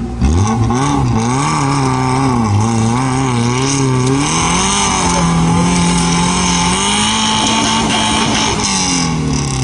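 Off-road jeep's engine revving hard under load on a steep dirt climb. The revs shoot up at the start, waver, step higher about halfway through and hold, then drop near the end.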